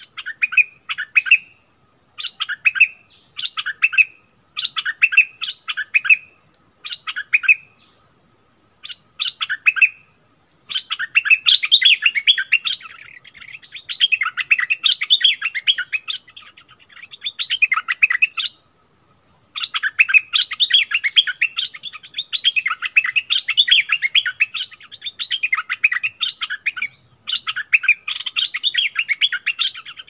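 Bulbuls in a song duel: a caged decoy and a wild bird answering it with bubbly, chattering phrases. At first the phrases are short, about one a second; about ten seconds in they become long, almost unbroken runs of song, with two short breaks.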